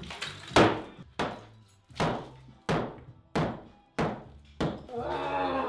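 Sledgehammer blows knocking out a thermalite breeze-block wall: about seven sharp cracking strikes, roughly one every 0.7 seconds, each ringing briefly.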